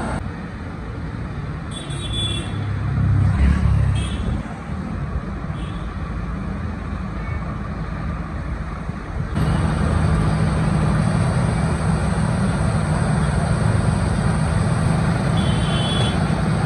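A JCB 3DX backhoe loader's diesel engine running in the river, with a louder surge about three seconds in. About nine seconds in it becomes louder and closer, running steadily.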